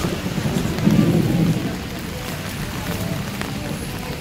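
Heavy rain pouring down in a thunderstorm, with a low rumble of thunder about a second in that dies away into the steady hiss of the rain.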